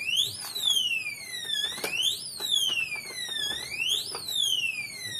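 Electronic safe's built-in alarm wailing, a siren tone that rises quickly and falls slowly, repeating about every two seconds. It is the warning set off by three failed fingerprint attempts, and it keeps sounding until the batteries are removed. A few clicks sound under it.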